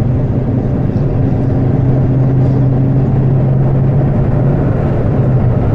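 2010 Ford Focus XR5 Turbo, fitted with aftermarket intake and exhaust, cruising at a steady speed, heard from inside the cabin: a steady engine drone over constant tyre and road rumble. The car has a turbocharged 2.5-litre five-cylinder engine.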